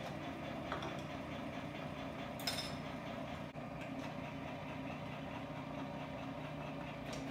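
Breville food processor's motor running steadily with the dicing attachment as vegetables are pushed down the feed chute, with one brief sharp click about two and a half seconds in.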